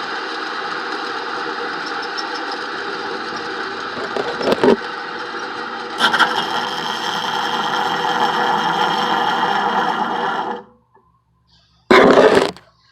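Old bench grinder with newly fitted 60-grit stones running steadily. It gets louder and brighter about six seconds in, then cuts off about two seconds before the end, and a short loud clatter follows.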